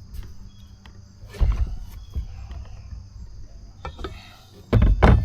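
Heavy knocks and thuds of hand tools working on a scooter's rear wheel and tire, irregular, with the loudest cluster near the end, over a faint steady high-pitched hiss.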